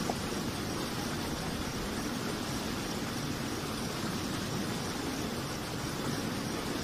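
Muddy water rushing steadily through a dug channel, an even, unbroken noise.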